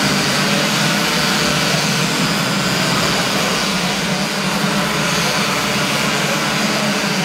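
A pack of 60cc two-stroke racing kart engines running at speed together, a steady loud drone of several overlapping engine notes.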